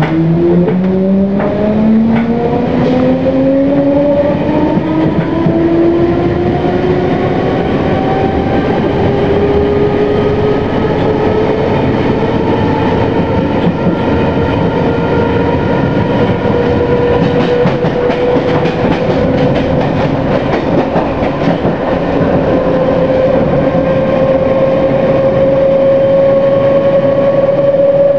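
London Underground C Stock train accelerating: its traction motor whine rises steeply in pitch at first, then levels off into a steady high hum, over a continuous rail rumble. There are a few sharp clicks of the wheels in the first couple of seconds.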